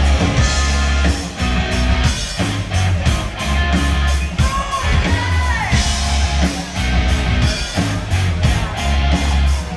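Live rock band playing, with electric guitar, bass and drums keeping a steady beat and a note bending up and down near the middle.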